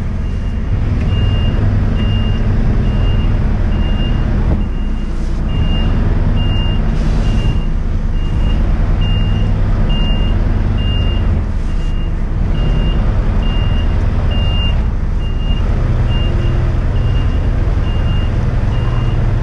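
Articulated lorry reversing onto a loading dock: its reversing alarm gives a steady high beep just over once a second over the running diesel engine.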